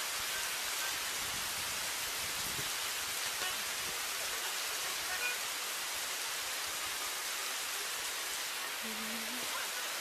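Steady rain falling on muddy ground and puddles, an even hiss.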